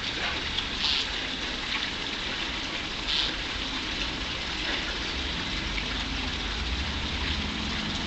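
Steady rushing outdoor hiss, with two short, high bird chirps about a second in and again about three seconds in.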